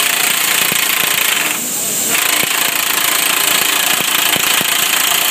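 Pneumatic air tool rattling over a hiss of compressed air, in two runs with a short break about one and a half seconds in, as it drives the fitting tool's spindle down to press the airbag sock onto the pedestal.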